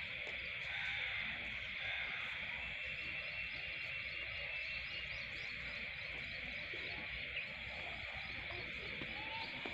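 Steady high-pitched chorus of frogs and insects calling after rain, with a faint low rumble underneath.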